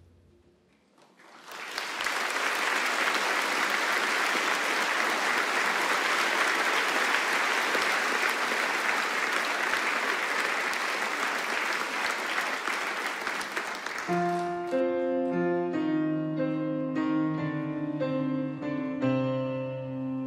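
Concert hall audience applauding for about twelve seconds after the last note dies away. Then the applause stops and music starts: a gentle introduction of repeated notes on piano and strings.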